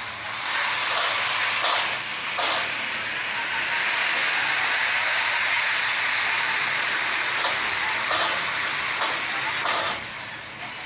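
Steady rushing noise of vehicles driving off a river ferry over its steel ramps, with a couple of faint knocks about two seconds in.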